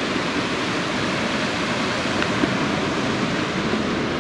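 Ocean surf breaking and churning against rocks: a steady rushing noise.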